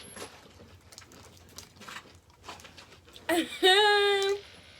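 Faint clicks and crackles of eating at the table, then about three seconds in a high voice lets out one drawn-out vocal sound lasting about a second.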